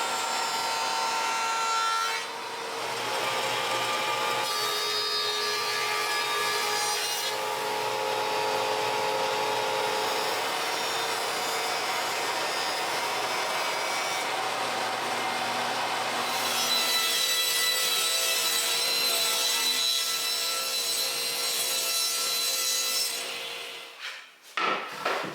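Power saw cutting wood: a steady run of cutting noise with a motor whine, in several stretches that change pitch and tone, dying away near the end with a few sharp knocks.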